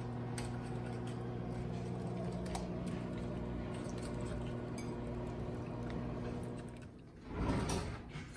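Wire whisk stirring a thick cheese sauce in a glass bowl, with faint clinks against the glass, over a steady low electrical hum. Near the end the hum stops, followed by a louder rattle and clatter.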